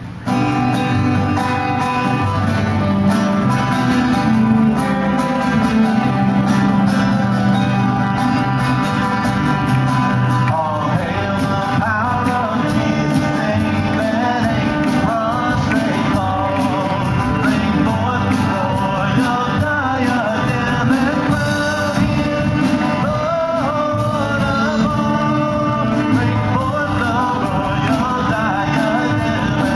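Live worship band of acoustic guitar, electric bass and drums starting a song with an instrumental opening; singers come in about ten seconds in and carry on over the band.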